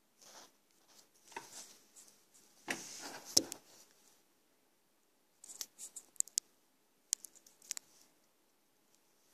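Paper rustling and handling noise close to the microphone, in short scrapes over the first few seconds with a sharp click about three and a half seconds in, then a few quick dry clicks later on.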